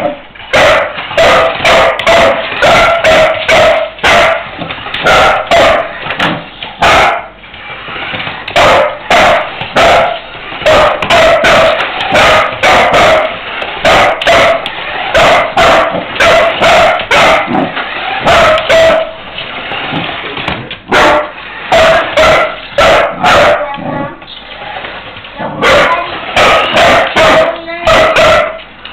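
Welsh Springer Spaniel barking over and over in quick runs of short, loud barks, broken by a few brief pauses.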